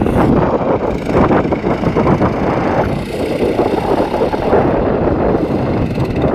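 Go-kart's small engine running as the kart spins donuts through wet salt-lake mud, its loudness rising and falling slightly as it circles.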